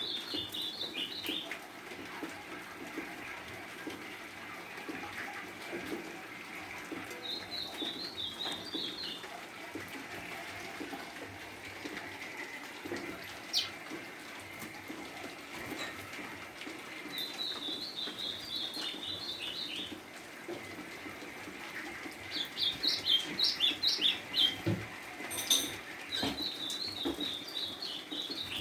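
Golinha (white-throated seedeater) singing short phrases of quick, high chirping notes, about five phrases a few seconds apart, the loudest a little after two-thirds of the way through, over a steady background hiss. A couple of sharp clicks are heard as well.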